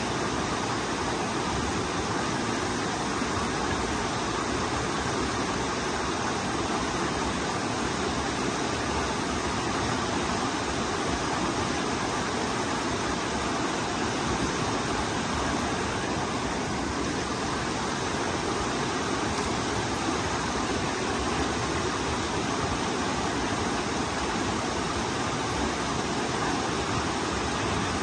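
Rain-swollen forest stream rushing over rocks and a small cascade: a steady, unbroken rush of water.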